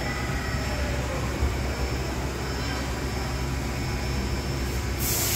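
Fadal VMC4020 CNC vertical machining center running, a steady low machine hum with a single knock about a second and a half in. Near the end a loud hiss starts.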